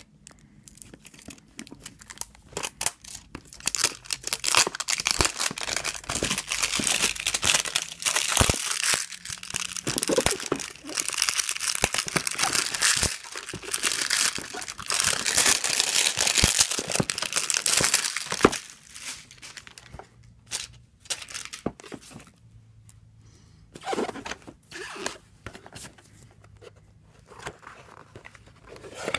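Plastic shrink-wrap being torn and peeled off a cardboard product box, with continuous crinkling and tearing for about the first eighteen seconds. After that come quieter, scattered rustles and taps as the box is handled and opened.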